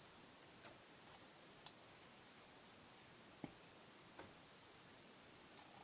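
Near silence with four faint, scattered clicks and taps.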